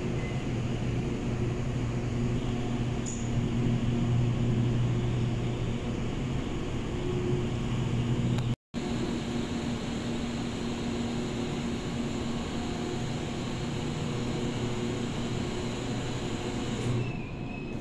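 Steady low mechanical hum of a running motor or vehicle. It breaks off for an instant just past halfway, and its tone changes near the end.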